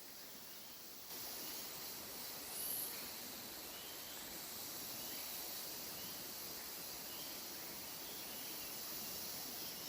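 Tropical forest ambience: a steady, shrill insect hiss, with faint short calls repeating about once a second.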